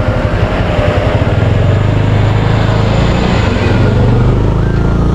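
Bajaj Avenger 220 motorcycle's single-cylinder engine running steadily as the bike rides along, under a continuous wash of road and wind noise.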